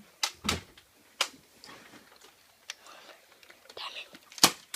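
A handful of sharp clicks and knocks from Nerf blasters and foam darts, spaced irregularly, one with a low thud about half a second in and the loudest near the end.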